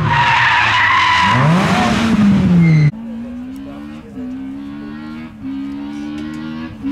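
Opel Astra rally car's engine drops in pitch as it comes into a bend, then revs up hard, with a high steady squeal over it. After a sudden cut about three seconds in, a quieter rally car engine accelerates through the gears, its note climbing in each gear with a shift roughly every second and a bit.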